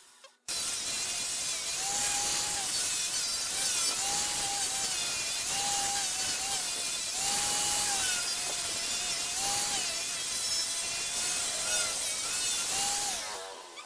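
Angle grinder with a sanding disc running against a wooden vase spinning on a lathe: a harsh sanding rasp over the motor's whine. The whine's pitch drops and recovers again and again as the disc is pressed into the wood and eased off. It starts suddenly and fades near the end.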